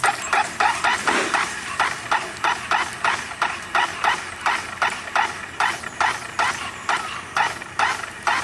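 A dog barking rapidly and continuously, about three to four sharp yaps a second, the excited barking of a dog worked up by the lure.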